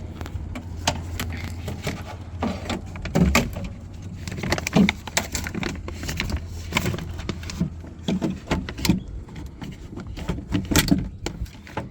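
Irregular clicks, taps and rattles of a car door lock actuator and the door's plastic and metal parts being handled by hand, over a steady low hum.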